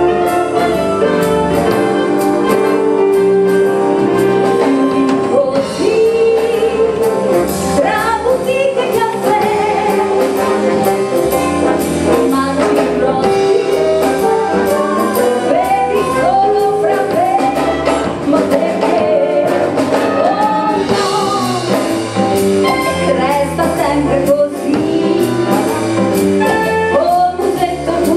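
Live big band with brass, saxophones, clarinets and drum kit playing a song; held brass chords open it, and a woman sings the lead into a microphone from about six seconds in.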